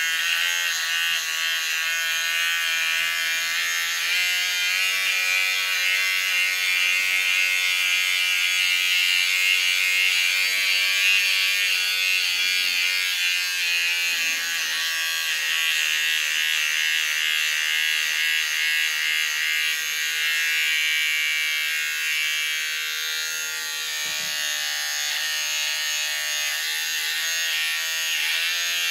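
Electric beard trimmer running steadily, its blades cutting beard stubble as it is drawn along the jaw and neck.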